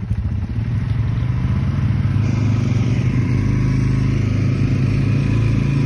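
Four-wheeler (ATV) engines running hard under load, towing a waterlogged boat out of the water. The engine sound swells about half a second in and then holds steady.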